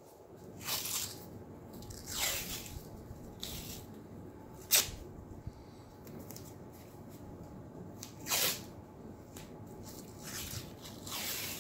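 White athletic tape pulled off the roll in several short rasping pulls, some dropping in pitch, and torn by hand, with one sharp snap about five seconds in.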